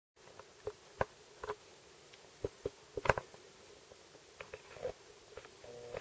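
Faint, irregularly spaced clicks and light taps, loudest about three seconds in, with a brief faint tone just before the end.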